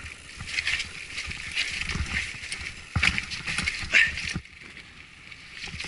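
Mountain bike rattling and clattering as it rolls down a rocky trail, with irregular knocks as the tyres hit stones, picked up by a camera riding along on the bike or rider. The clatter eases off about four and a half seconds in.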